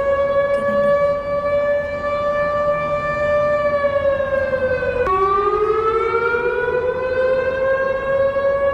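Civil defence warning siren holding a steady, even tone. It sags slightly, jumps abruptly to a lower pitch about five seconds in, then climbs back up to its earlier pitch.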